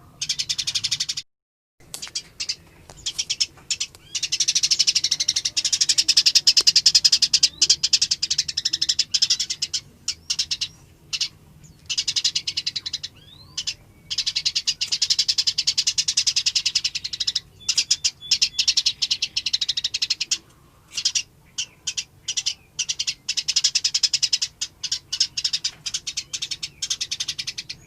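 Songbird song from a masteran training recording: dense, rapid-fire chattering and ticking notes in long bursts, with short breaks between them. The sound cuts out completely for a moment about a second and a half in.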